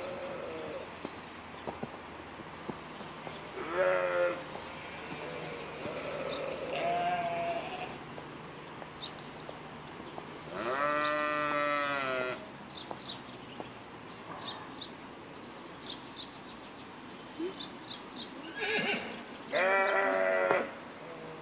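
Sheep bleating several times, with a ewe and her newborn lamb close by; the calls are spread out, the longest lasting about a second and a half near the middle and the loudest near the end.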